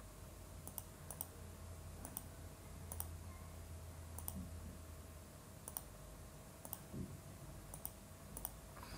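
Computer mouse button clicking at irregular intervals, several clicks in quick pairs, as wire segments are placed in a schematic drawing program. A faint low hum underneath stops about five seconds in.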